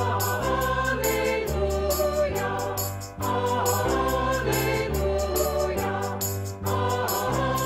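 Worship music: a choir singing over instrumental accompaniment, with a bass line that changes note about once a second and brief breaks between phrases.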